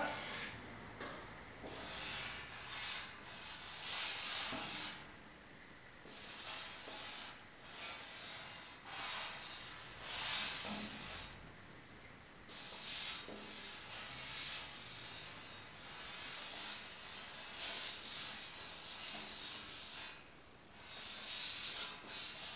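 Freehand drawing on a sheet-metal panel: about a dozen short, faint rubbing, hissing strokes of the drawing tip across the metal, each under a second, with brief pauses between.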